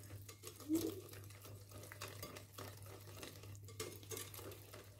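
Metal utensil stirring thick pancake batter in a glass bowl: faint, irregular scraping and clinks against the glass.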